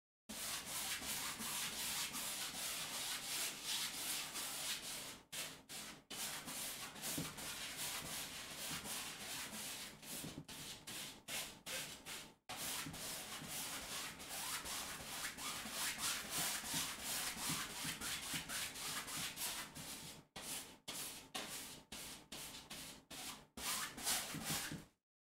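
Paintbrush scrubbing paint onto a stretched canvas in rapid back-and-forth strokes, a dry scratchy rubbing broken by a few short pauses.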